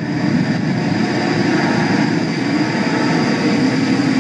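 Steady, even rumble of street traffic noise, without separate events or changes in pitch.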